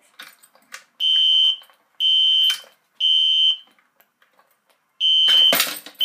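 Fire alarm horn strobes, a System Sensor Classic and a Gentex Commander 3, sounding the temporal Code 3 evacuation pattern. Three loud, high beeps come a second apart, then a pause, then the next group of three begins. About five and a half seconds in there is a sharp clack, as the pull station is opened with its key.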